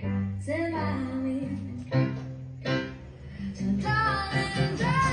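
A song with a woman singing over instrumental backing, played through a single-ended tube amplifier. The amplifier, whose output transformer has been rewound, is being tested and is working normally.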